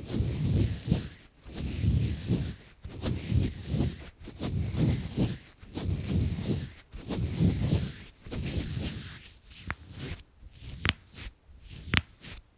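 Lace gloves rubbing close to the microphone in slow, even strokes, about one a second. Near the end the strokes thin out into a few sharp taps.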